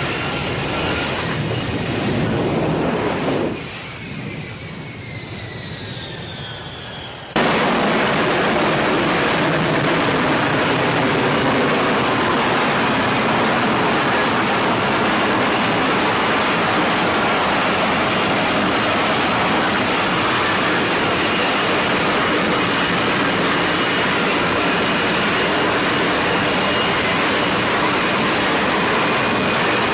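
Jet engine noise. A falling whine runs from about 3.5 to 7 seconds in, then the sound cuts suddenly to a loud, steady roar that lasts to the end.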